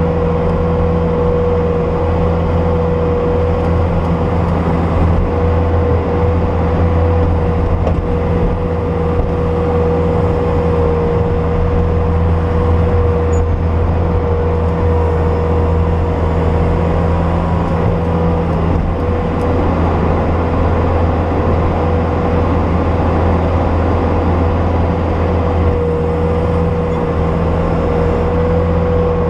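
Bobcat S250 skid steer's diesel engine running steadily while it digs through deep snow, with a steady whine over the engine note.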